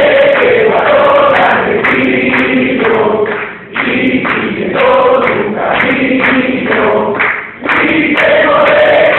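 Many voices singing together in unison in long held phrases, with brief breaks between phrases about a third and about two thirds of the way through.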